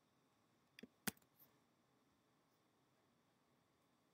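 Near silence, with a few faint computer clicks about a second in.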